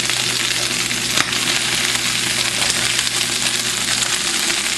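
Rice, onion and shrimp, scallop and chicken liver sizzling steadily in hot coconut oil in a frying pan, with one sharp knock about a second in.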